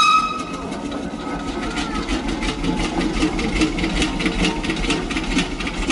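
A machine running steadily, with a fast, even clatter.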